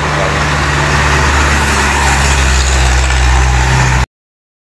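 An engine idling steadily, with a low, even hum. It cuts off suddenly about four seconds in.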